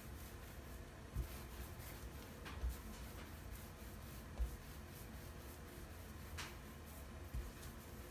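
Hands rolling a rope of soft pretzel dough on a countertop: faint rubbing of palms over dough and counter, with a few soft low thumps as the hands press down.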